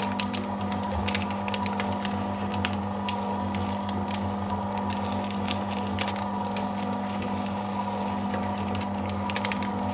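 Paper shredder running steadily while cutting thermal ECG paper: a constant motor hum with scattered crackles and clicks from the paper being cut.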